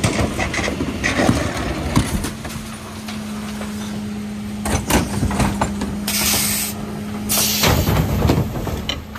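Mercedes Econic refuse truck running behind its Faun Variopress body with a steady hum, with several metallic knocks and clanks from the bin lifter and bins. Two sharp bursts of air hiss come a little past halfway.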